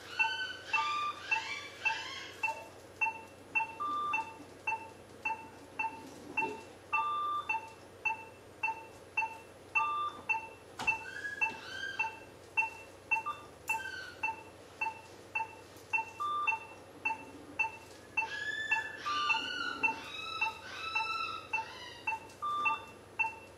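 Operating-room patient monitor beeping steadily, about two short beeps a second in time with the anaesthetised dog's pulse. A longer tone comes every few seconds, and a few brief clusters of higher chiming tones come and go.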